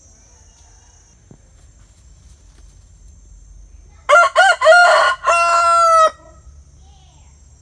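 Rooster crowing once, about four seconds in: a few quick rising-and-falling notes, then a long held final note.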